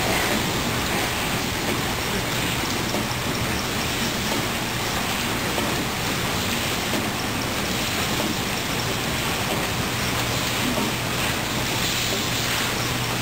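Steady assembly-line hall ambience: an even hiss of machinery and air handling with a low machine hum underneath, which grows a little stronger about ten seconds in.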